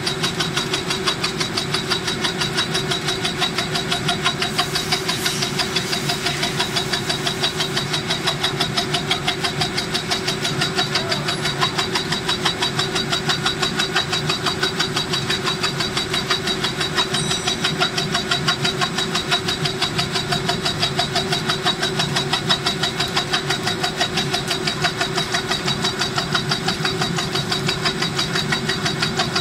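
Borghi brush tufting machine at work, its tufting head driving filament tufts into the holes of a round floor-scrubber brush plate in a fast, even rhythm of strokes over a steady machine hum.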